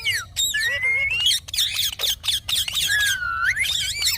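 Ringneck parrot chattering in a fast run of high squeaks, clicks and gliding whistles, with a long rising whistle about half a second in and a whistle that dips and rises again near three seconds in.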